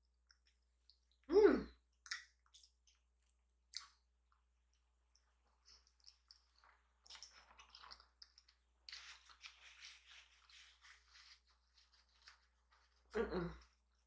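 Close-miked chewing of ramen noodles, with faint wet mouth clicks and crackles. A short hum is heard about a second in and again near the end.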